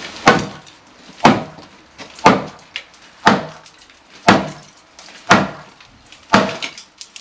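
Seven heavy, evenly spaced blows, about one a second, striking the rotten timber of a stud wall to knock it apart.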